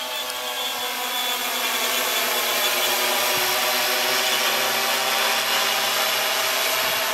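Quadcopter's electric motors and propellers whirring steadily in flight, growing louder over the first few seconds with the pitch edging slightly up.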